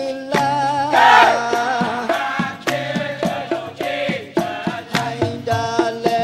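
Dikir barat singing: a lead singer on a microphone, with a seated chorus chanting, over a steady beat of sharp strikes about three a second. About a second in, a loud sung note wavers in pitch.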